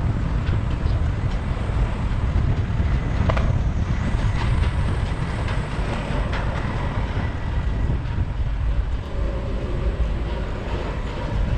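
Wind buffeting the microphone of a moving e-bike, a steady low rumble mixed with road noise, with a couple of sharp clicks from the bike.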